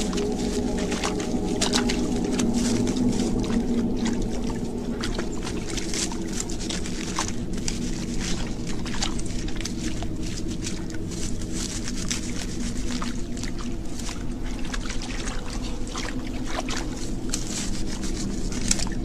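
Wet mud and stream water being scooped and scraped by hand, with frequent small splashes and sloshes, over a steady low hum.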